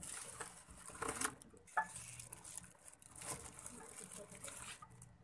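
Shop background noise: a steady hiss with faint distant voices and scattered light clicks and clatter.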